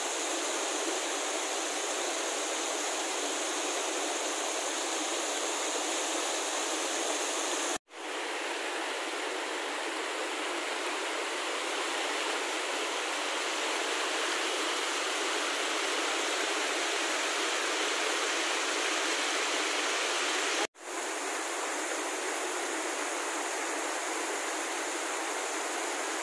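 Rushing mountain stream pouring over rocks: a steady hiss of water that breaks off for an instant twice.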